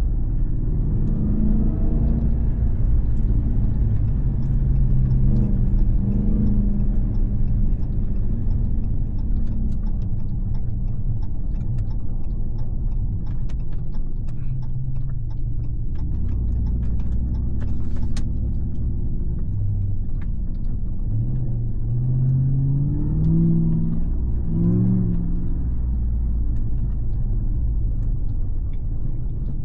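The supercharged 6.2-litre V8 of a 2022 Ram TRX pickup, running on an aftermarket exhaust with SLP resonators, is driving under way with a deep exhaust note. The engine pitch rises and falls a few times as the truck speeds up and slows.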